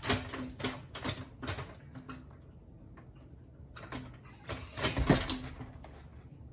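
Metal frame of a children's gymnastics bar knocking and rattling under a child's weight as she moves on it: a run of short knocks about twice a second at first, then a louder cluster of knocks about five seconds in.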